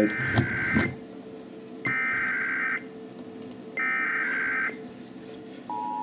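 Emergency Alert System SAME header: three bursts of warbling digital data tones, each just under a second long and about a second apart, the coded header that announces an alert to receiving equipment. Near the end the steady two-tone EAS attention signal begins.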